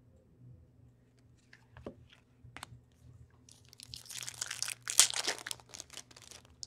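Wrapper of a 2014/15 SPX hockey card pack being torn open and crinkled. A few light ticks and rustles come first, then dense crinkling starts about three and a half seconds in and is loudest around five seconds.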